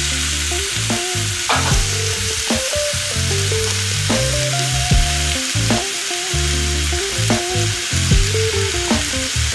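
Seasoned beef chunks searing in a hot cast iron skillet, with a steady, dense sizzle. Background music plays underneath.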